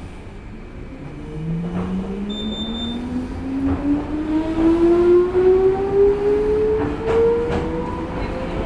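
Electric train's traction motors whining as it accelerates, heard inside the passenger car: a tone with several overtones that starts about a second in and climbs steadily in pitch. Wheels click over rail joints now and then.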